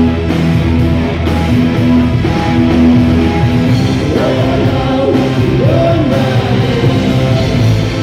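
A live rock band plays through the stage PA: drums, bass guitar and keyboards. A man's singing voice comes in over it about four seconds in, with sliding, gliding notes.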